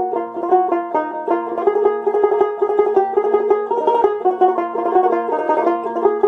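Background music: a quick tune of plucked-string notes in a banjo-like, country style, running at an even level.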